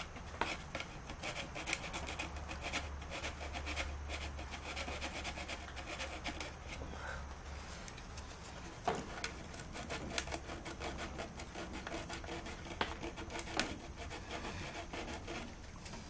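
60-grit sandpaper scratching back and forth on the inside of a PVC clock housing, roughing up the plastic for gluing, with a few sharper knocks along the way.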